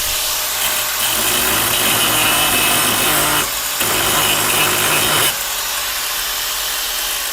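Angle grinder cutting in two loud stretches, broken off briefly near the middle, then running more lightly with its motor whine.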